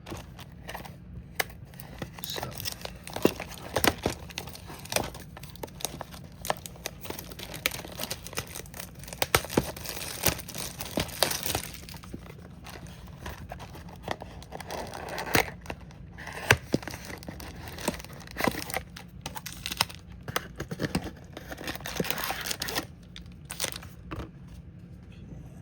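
Plastic wrapping on a trading-card box crinkling and tearing as the box is opened by hand, with irregular crackles and sharp snaps throughout, busiest about ten seconds in and again near the end.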